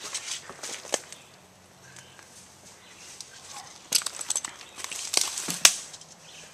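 Footsteps crunching through dry leaves and brush, irregular crackling steps, with a flurry of sharp snaps about four seconds in and one loud snap near the end.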